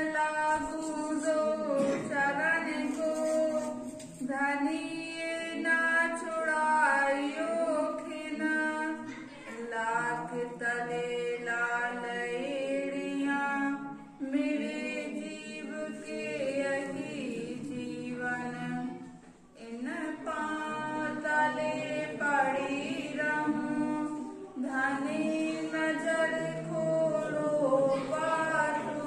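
Women's voices singing devotional scripture verses unaccompanied into microphones, in drawn-out melodic phrases of about five seconds, each followed by a short breath pause.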